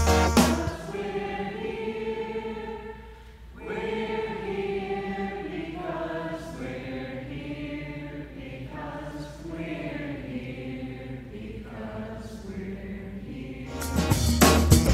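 A theatre audience singing together, many voices holding slow, drawn-out notes in phrases with short breaks between them.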